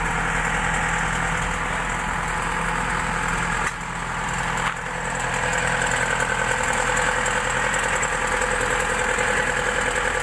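An engine idling steadily, with a brief drop in level about four seconds in.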